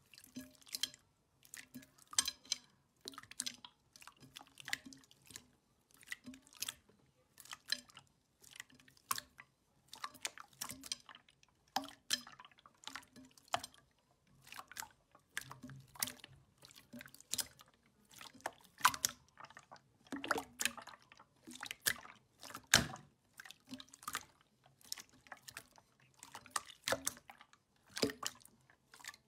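Clear red slime being squeezed and pressed by hand: an irregular string of short, wet pops and sticky clicks, several a second.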